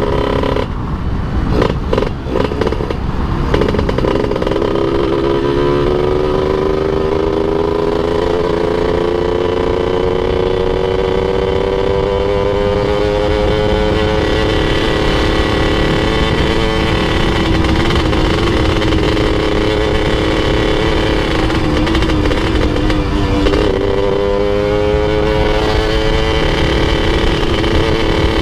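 Yamaha F1ZR two-stroke motorcycle engine under way. Its pitch climbs slowly as it pulls through a gear, holds, dips about two-thirds of the way in, then climbs again, over steady wind and road rumble. A few sharp knocks come in the first three seconds. The rider says the bike feels very heavy and its oil has run out.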